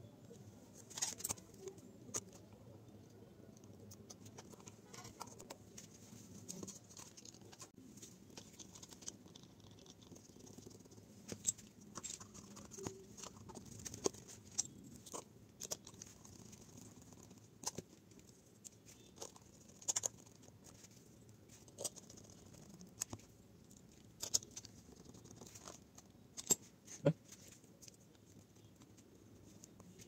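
Quiet, irregular clicks and taps of a small screwdriver driving screws into a JBL GO speaker's plastic housing and hands handling the parts as it is screwed back together.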